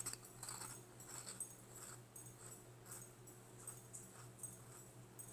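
Faint chewing of a crunchy snack, puffed wheat snacks, with soft crackly bites about twice a second over a steady low hum.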